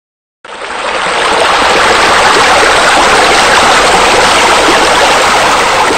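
Loud, steady rush of running, spilling water, a water-feature sound effect in a pool-design rendering. It starts about half a second in, swells up over the next second, then holds even.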